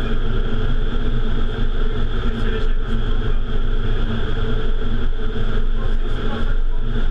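Vertical wind tunnel running at flying speed: a loud, steady rush of air through the flight chamber, with a constant hum of fan tones beneath it.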